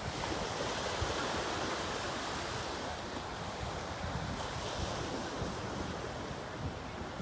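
Small surf breaking and washing up a sandy beach as a steady wash, with wind buffeting the microphone.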